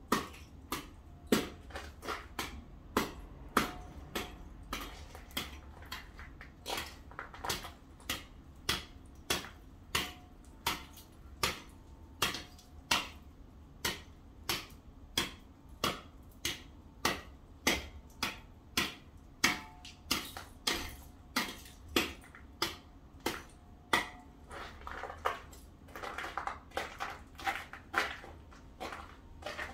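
A shovel striking and chipping at packed snow and ice, about one and a half strikes a second, with a longer scrape near the end.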